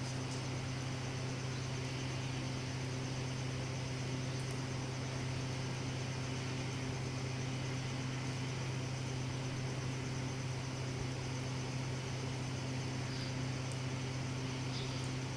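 A machine running steadily: a constant low hum over an even hiss, with no change in pitch or level.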